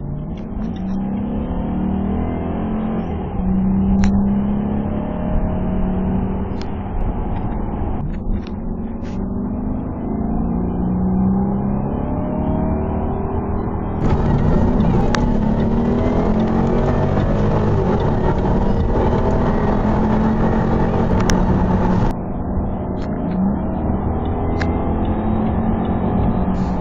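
Supercharged Jaguar V8 exhaust under hard acceleration, its note climbing in pitch and dropping back again and again. It comes in several short clips that cut abruptly from one to the next.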